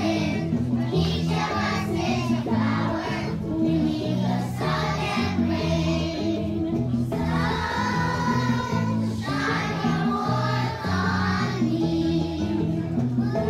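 A group of young children singing together over backing music that has a steady, repeating bass line.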